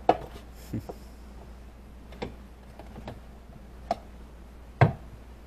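Scattered sharp clicks and knocks at irregular intervals, about seven in all, the loudest near the end, over a faint steady low hum.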